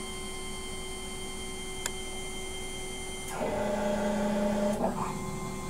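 Denford MicroMill 2000 CNC mill driving an axis under power while homing. The axis drive gives a steady whine for about a second and a half, starting past the middle, over a faint steady hum, with a single light click about two seconds in.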